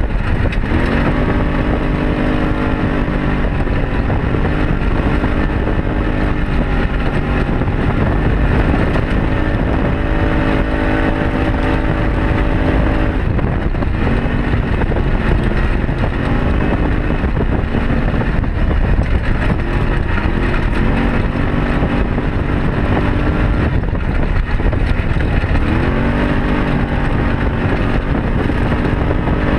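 Arctic Cat Wildcat side-by-side's engine running under way, its pitch climbing several times as it speeds up, notably about a second in and again near the end, and sagging when it eases off, over a steady rushing road and wind noise.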